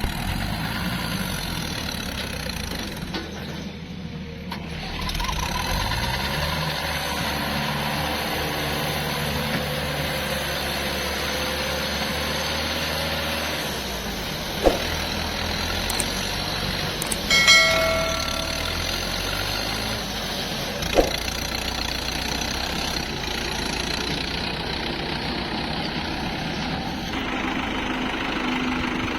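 Heavy diesel machinery running steadily, its engine note shifting up about five seconds in. A few sharp knocks come through near the middle, one of them with a brief ringing squeal.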